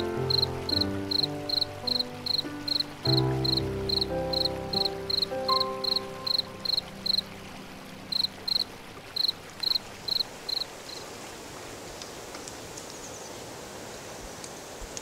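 A cricket chirping steadily in short single chirps, about two and a half a second, stopping about two-thirds of the way through. Soft sustained music chords sound under it at first and fade out. A steady hiss of background noise is left.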